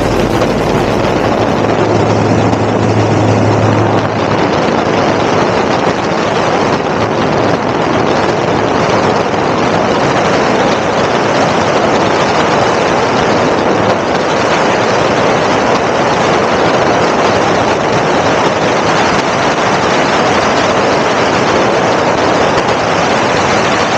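Steady in-flight noise of a Savannah STOL ultralight aircraft: engine and propeller drone mixed with wind rush on the microphone. A low hum drops away a few seconds in.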